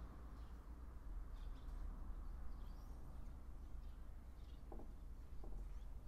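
Faint outdoor ambience: a steady low rumble with scattered faint, high, short chirps from distant birds, and two soft clicks near the end.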